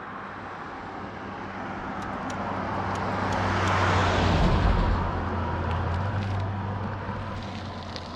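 A motor vehicle passing on the road, its engine hum and tyre noise swelling to a peak about four seconds in and then fading.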